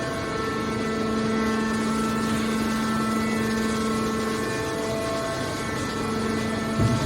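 Hydraulic scrap-metal baler running: a steady droning hum from its hydraulic power unit, with a low thump near the end.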